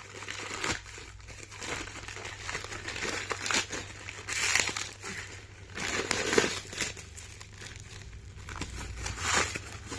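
Plastic packaging and bubble wrap crinkling and rustling in irregular bursts as a parcel is unwrapped by hand, with a few louder handling bursts.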